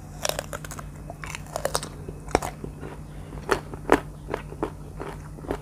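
Biting into and chewing a slice of firm, crisp R2 mango close to the microphone: a run of sharp, separate crunches, the loudest a little past the middle.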